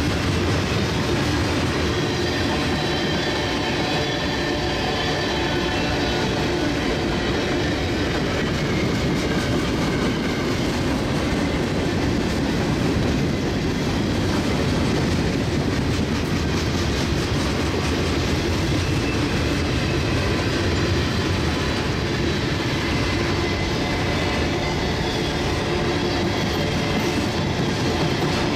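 Freight cars of a merchandise train (covered hoppers and boxcars) rolling past at steady speed: a continuous, even rumble of steel wheels on rail.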